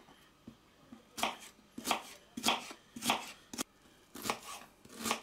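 Kitchen knife slicing through a raw onion onto a plastic cutting board: a steady series of crisp cuts, roughly one every half-second to second, starting about a second in.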